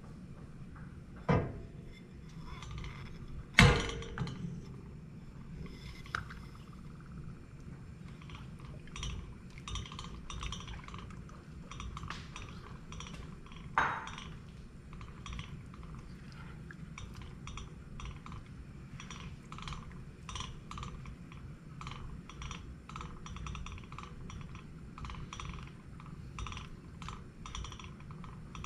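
Silicone spatula stirring sugar into heavy cream in a stainless steel pot, ticking and scraping against the pot in a quick, irregular run of light clicks through the second half. A few sharp knocks come earlier, the loudest about three and a half seconds in.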